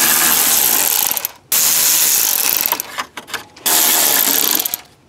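Power tool spinning bolts out through a socket on a long extension, running in three spurts of about a second each with short stops between, as the steering column bracket bolts are backed out.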